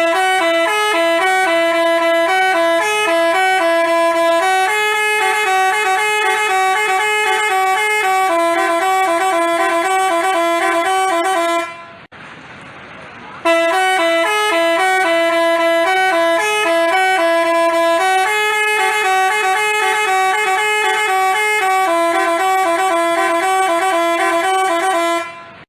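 Multi-tone 'telolet basuri' bus horn playing a quick melody of changing notes. The same tune plays twice, with a pause of about a second and a half in the middle.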